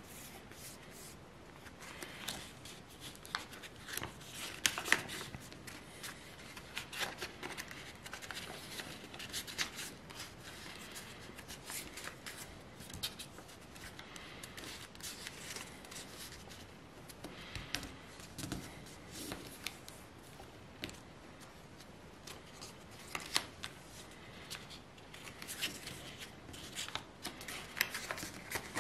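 A square sheet of paper being folded by hand into an origami crane: irregular rustling with sharp crackles as the folds are pressed and creased.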